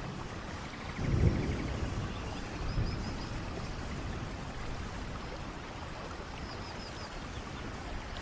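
Steady water-noise ambience, as in a nature-sounds meditation track, with a low rumble about a second in and two short runs of faint high chirps.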